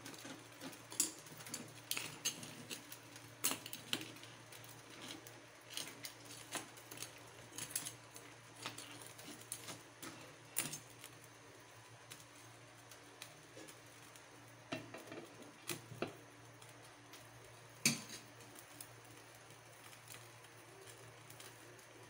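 A spatula scraping and knocking against a nonstick pan as blue crabs are stirred in their simmering broth: irregular clicks and clatters, busy at first and then thinning out, with a few more knocks later and one sharper clack near the end.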